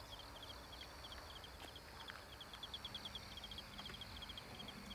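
Insects chirping faintly at night: a steady run of short, high chirps in quick clusters.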